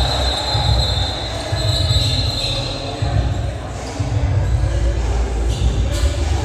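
Basketball game sounds: the ball bouncing on the court and players moving, with a steady high-pitched squeal lasting the first two to three seconds over a constant low rumble.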